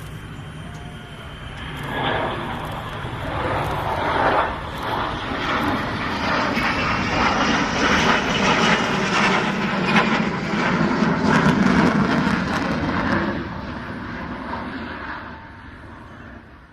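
F-35B jet noise with the aircraft in STOVL mode, its Pratt & Whitney F135 engine and Rolls-Royce lift fan running. A faint whine builds into loud jet noise about two seconds in, stays loud for around ten seconds, then fades away near the end.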